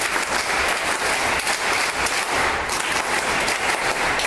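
Audience applause: many people clapping together in a dense, steady round.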